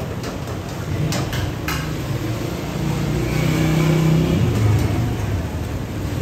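Busy street ambience with a motor vehicle engine running, its low rumble swelling a little around the middle, and two sharp metallic clinks about a second in.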